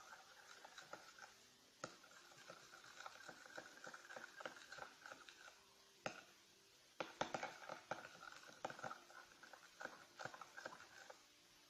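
Faint stirring of thick glue and poster colour in a bowl: rapid small clicking and scraping strokes, stopping for about a second near the middle, then starting again.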